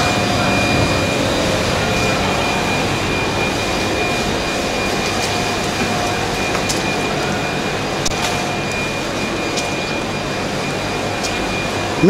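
Steady rushing noise of live-seafood tanks' water circulation and air pumps, with a faint steady high whine and a few faint ticks.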